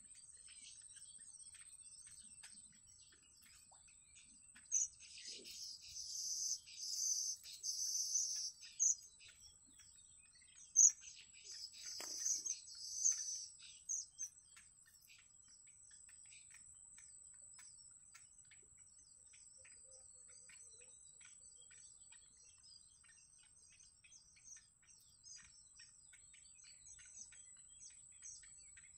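Yellow bittern chicks' high-pitched begging chirps, coming in two bursts about five seconds in and again around eleven seconds, over a thin steady high whine and scattered faint ticks.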